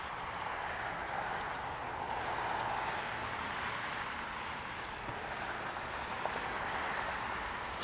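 Steady hum of distant road traffic, swelling slightly a couple of seconds in, with a few faint ticks.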